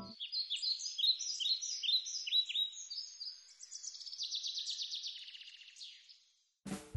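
Songbird singing: a run of quick chirps with short falling sweeps, then a fast trill that fades out about six seconds in.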